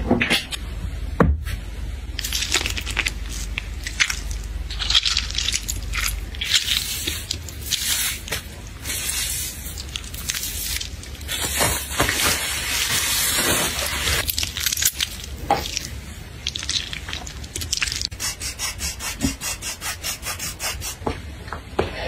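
Close-up handling sounds: objects being rubbed, scraped and set down, with a run of quick taps at about four a second near the end.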